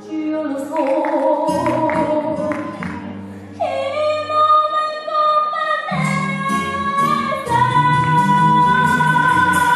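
A young girl singing solo over instrumental accompaniment, holding a long high note about three and a half seconds in and another long note near the end.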